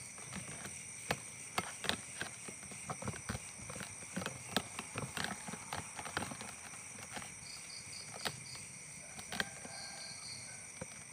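Night insects shrilling steadily at several high pitches, with many irregular sharp snaps and crackles on top, thickest in the first seven seconds. Short series of rapid chirps come twice near the end.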